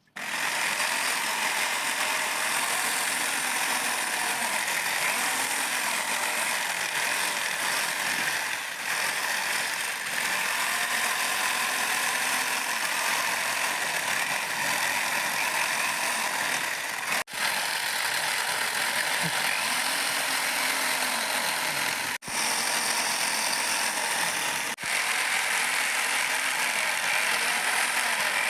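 Power tool working on wood, a steady rasping noise with three brief breaks in the latter half.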